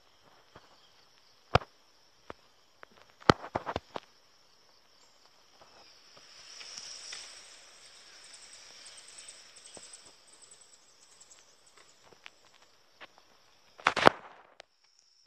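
Steady high trilling of insects, with a few sharp knocks in the first four seconds. A soft hiss of water being poured onto garden soil and seedlings swells and fades over several seconds in the middle, and a short loud clatter comes near the end.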